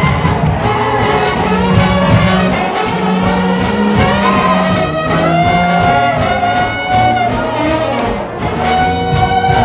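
Music playing: a full, dense arrangement with held melody notes that shift in pitch.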